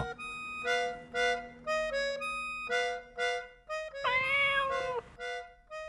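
Light instrumental background music made of short held notes, with one long cat meow about four seconds in.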